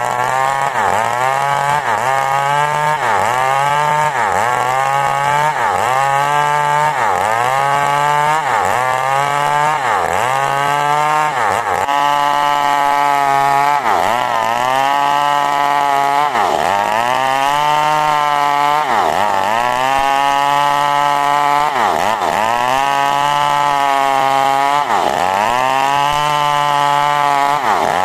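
Chainsaw cutting coconut wood into planks at full throttle. Its engine note drops under load and recovers over and over, about once a second at first and then every two to three seconds from about halfway.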